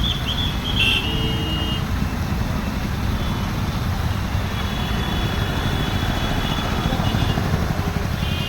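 Steady, loud rushing roar of a waterfall, with thin high whistling tones rising above it briefly near the start and again midway.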